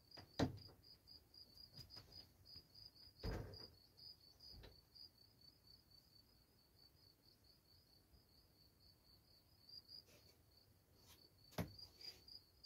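A cricket chirping in fast, even pulses of one steady high tone, faint throughout. A few dull knocks break in, the loudest about half a second in and another near the end.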